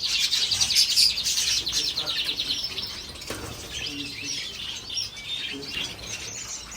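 Many small caged pet birds chirping and twittering together: a dense, fast chatter that thins to scattered chirps after about two and a half seconds.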